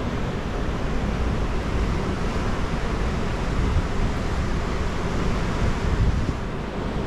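Fast river current rushing and churning against a concrete wall in a steady wash, with wind buffeting the microphone.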